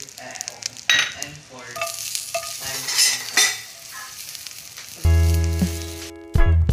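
Hot fat sizzling and crackling in a stainless steel frying pan with garlic cloves frying, with a few sharp pops. About five seconds in, loud plucked-string music comes in over the sizzle.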